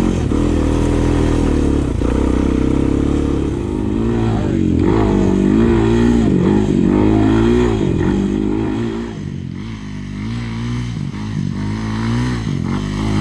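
Single-cylinder Honda sport quad engine running under throttle, its pitch rising and falling again and again as the rider works the throttle over rough ground; it eases off and drops lower a little past the middle, then picks up again.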